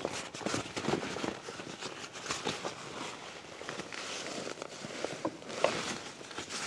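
Irregular rustling and clicking as a rucksack is handled, with feet shuffling in dry fallen leaves.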